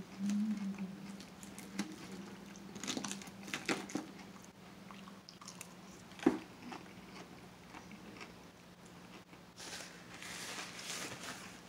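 Close-up chewing and crunching of a seafood salad with lettuce, with a few sharp clicks and crunches scattered through it. Near the end, a paper napkin rustles. A faint steady hum runs underneath.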